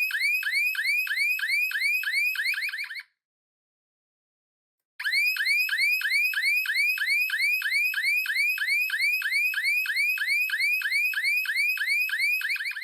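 Electronic siren sounding a fast yelp, a bright tone sweeping up and down about four times a second. It cuts off about three seconds in and starts again two seconds later.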